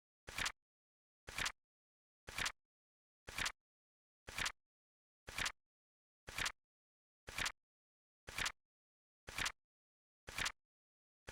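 Flip-clock timer sound effect: a short double click of a flap flipping, repeating evenly about once a second, with silence between.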